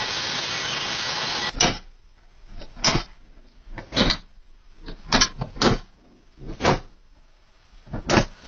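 A power tool cutting metal runs steadily and stops abruptly about a second and a half in. Then come about seven separate sharp knocks at irregular intervals.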